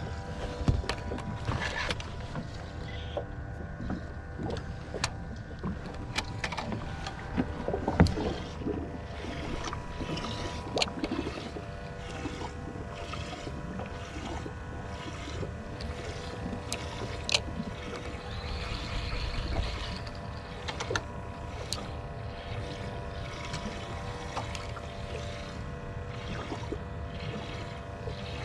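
Boat noise: a steady motor hum over water noise, with scattered sharp knocks and clicks.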